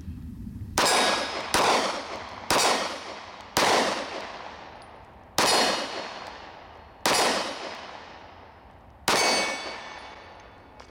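Mossberg MC2c 9mm striker-fired pistol fired seven times one-handed, each shot followed by a long ringing tail as steel targets are hit. The first four shots come about a second apart, then the pace slows.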